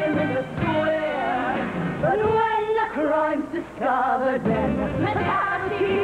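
Musical-theatre music playing for a dance number, with a melody line that bends up and down over the band.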